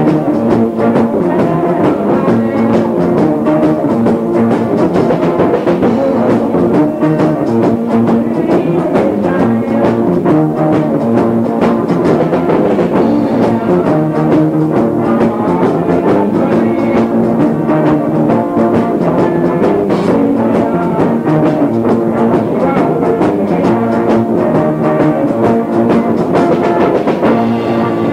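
Live rock band with electric guitars and drum kit playing, heard muffled and muddy on a faulty cassette recorder placed in a room down the hall, the vocals barely audible under an inadequate PA.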